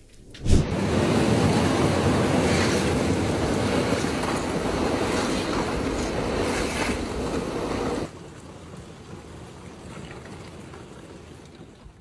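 Kayak breaking a path through thin sheet ice: a loud, continuous crunching and rushing of shattering ice shards. It starts abruptly about half a second in and drops to a much quieter noise about eight seconds in.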